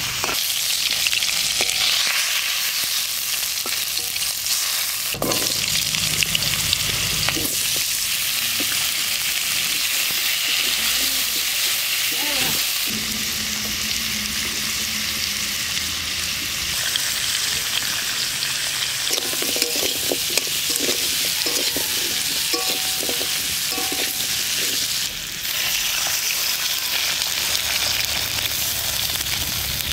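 Food sizzling in hot oil in a steel kadai, first pieces of catfish and then cubed green papaya. A metal spatula scrapes and stirs against the pan, and near the end water is poured in.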